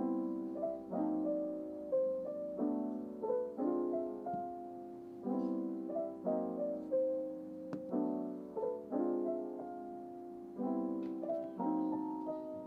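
Background music: a piano tune of chords re-struck about once a second.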